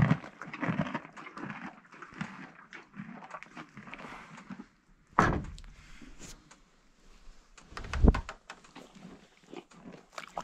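Two horses nosing and mouthing at a phone held against their muzzles: irregular breathing and rubbing noises close on the microphone, with two loud knocks about five and eight seconds in.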